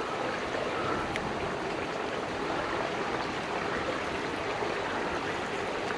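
Small river running steadily: an even, continuous rush of flowing water.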